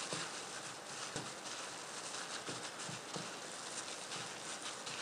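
Gloved hand gently mixing minced pork gyoza filling in a wooden bowl: soft, irregular squishing pats of the wet meat mixture.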